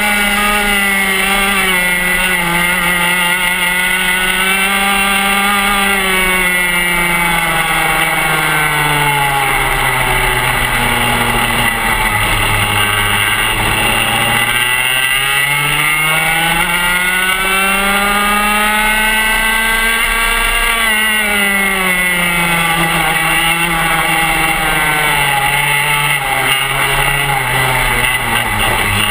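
PRD two-stroke TaG kart engine racing, heard from onboard the kart: the engine note sinks as the kart slows about ten to twelve seconds in, climbs steadily for several seconds as it accelerates, then sinks again over the last stretch toward a corner.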